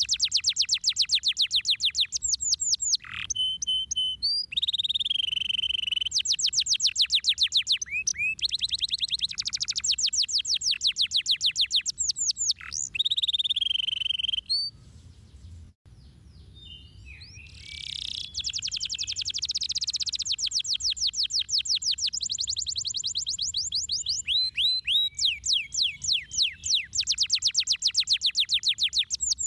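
Domestic canary singing long runs of fast trills, each a rapid series of quick falling notes, with short breaks and a longer pause about halfway through.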